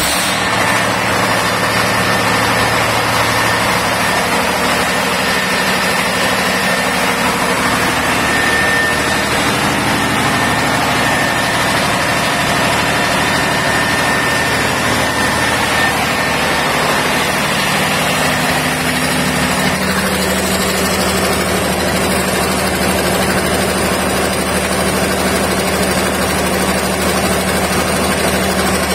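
Lister diesel generator set's engine running steadily at constant speed, a loud even hum with a thin high whine through the first half. The set is up to speed and generating about 415 volts.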